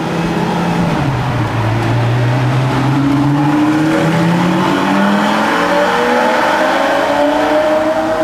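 Lamborghini Gallardo's V10 accelerating hard through a tunnel. The exhaust note echoes off the walls and climbs in pitch through the gears, with a gear change about a second in.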